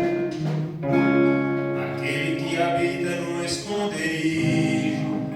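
Gospel worship music: acoustic guitar strumming with a voice singing.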